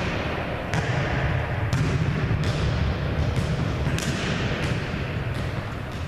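Volleyballs being struck by hand and bouncing on a hardwood gym floor: about eight sharp smacks spaced under a second apart, each echoing in the hall, over a steady low rumble.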